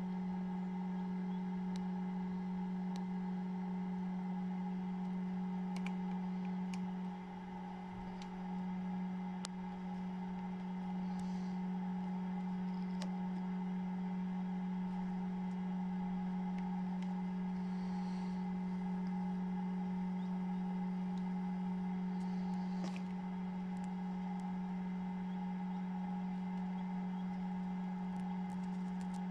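Steady low hum of an egg incubator's fan motor: one constant tone with fainter higher overtones, dipping briefly about seven seconds in.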